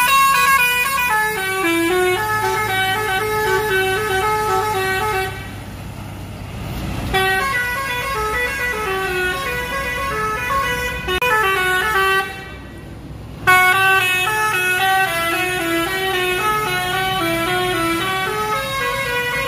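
A bus's multi-tone telolet horn playing a melody in quick stepped notes, breaking off twice briefly, over the steady hum of the bus's idling engine.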